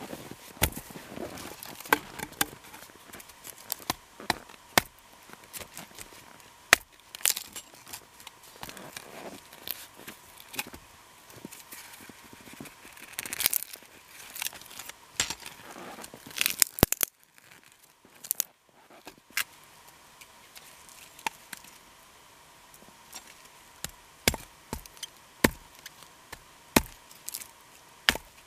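Hatchet blade striking firewood: sharp, irregular chopping knocks, settling into a steady run of blows about two a second near the end.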